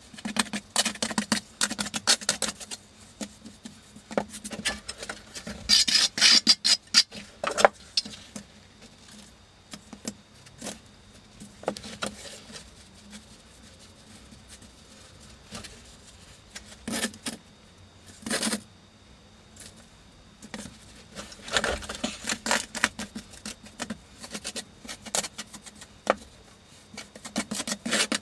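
Wet deck mud (sand-and-cement mortar) being packed and scraped around a shower drain flange by hand and with a trowel: irregular gritty scrapes and small knocks. The handling is busy in the first several seconds and again near the end, with a few single knocks in the quieter middle.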